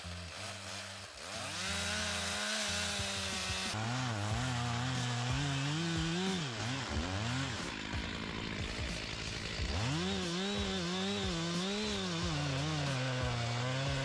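Two-stroke chainsaw cutting through the trunk to fell a tree. Its engine pitch keeps rising and falling as the chain bites into the wood, and drops away briefly about halfway through before climbing again.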